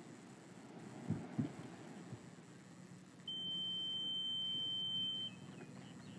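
Metal detector giving one steady high-pitched tone for about two seconds as its coil sweeps over beach sand, the signal of a metal target. Two dull thumps come about a second in.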